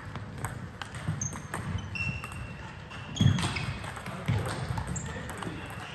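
Table tennis play: irregular sharp clicks of balls striking bats and tables, mixed with short high squeaks and a louder dull thump a little past halfway.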